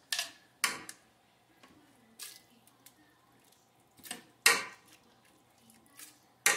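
Ladlefuls of chunky cooked cauliflower soup poured into a blender jar: about six short wet splashes and slops, the loudest about four and a half seconds in.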